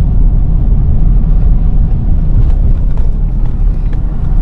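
A car driving, with a loud, steady low rumble of road and engine noise.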